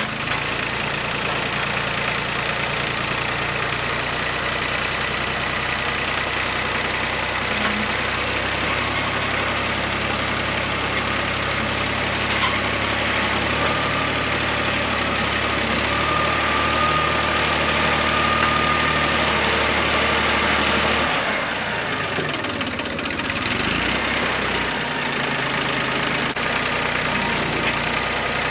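Compact tractor engine running steadily at a fairly constant speed. Its note shifts about 21 seconds in, then settles again.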